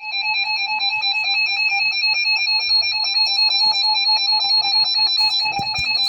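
Emergency Alert System alert tone: a steady electronic alarm that warbles rapidly between two close pitches, with strong overtones, starting abruptly. Faint crackle runs underneath.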